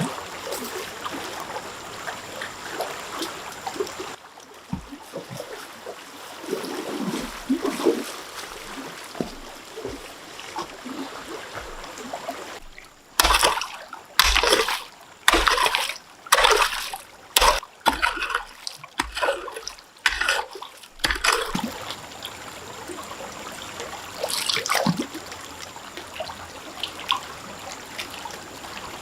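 Water trickling steadily. About halfway through comes a quick run of roughly ten loud splashes over some eight seconds, then the trickling goes on.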